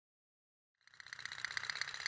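Otok-otok tin pop-pop toy steam boat running, a rapid, even putt-putt of fine ticks that starts about a second in.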